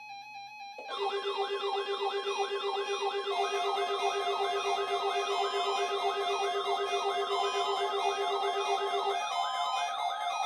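Weather radio alert alarms going off together: an electronic siren-like tone sweeping upward about three times a second over rapid steady electronic beeping. It starts about a second in, and the beeping drops out near the end.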